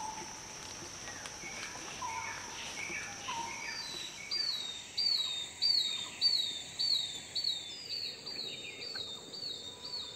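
Forest birdsong: scattered short chirps, then from about four seconds in a bird repeating a high falling note, a little under twice a second. A steady high thin whine runs underneath.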